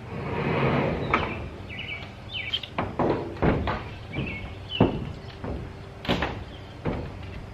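Footsteps thudding on a corrugated metal roof: about seven irregular thumps as someone walks up the roof carrying a solar panel. Birds chirp in between, and there is a rush of noise in the first second.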